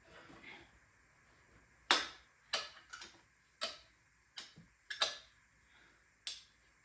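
Sharp clicks and taps of hand-tool work on bicycle parts, about ten of them at uneven intervals, starting about two seconds in.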